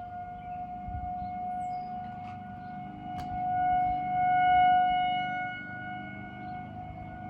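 Distant outdoor tornado warning sirens sounding a steady tone during a siren test. The tone swells louder about four seconds in and fades back. A second siren is faintly heard a little lower in pitch near the end.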